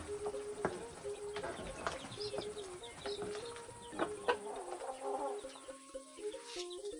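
Chickens clucking, a run of short repeated calls, with scattered light clicks of a spoon stirring in a metal cooking pot.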